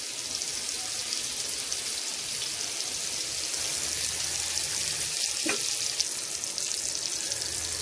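Marinated mullet pieces shallow-frying in oil on a tawa: a steady, dense hissing sizzle with fine crackles. One short knock about five and a half seconds in.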